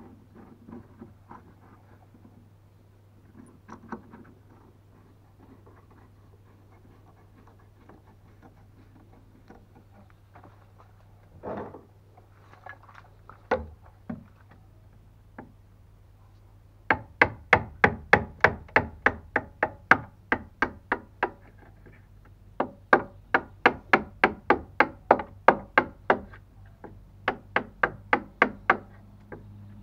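A wood chisel struck in quick, even blows, about three a second, as it is driven into a timber stringer to cut a notch. The blows start a little past halfway, after a few faint knocks, and come in two runs with a short pause between them.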